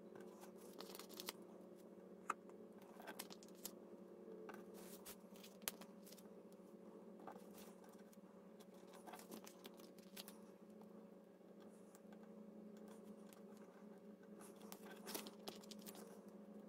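Faint rustling and light taps of paper as small stickers are peeled and pressed onto planner pages by hand, over a steady low hum.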